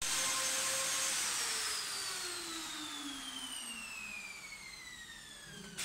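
An electric tool motor spinning down after switch-off: a steady whine with a hiss that, after about a second, falls slowly and smoothly in pitch as it fades. Near the end a click is followed by a second falling whine.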